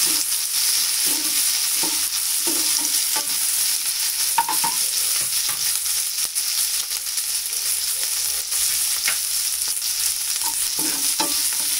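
Chopped capsicum, chillies, ginger and garlic sizzling steadily in hot oil in a frying pan. A steel slotted spatula scrapes and stirs them in short strokes during the first few seconds, with a couple of sharp clicks of metal on the pan later.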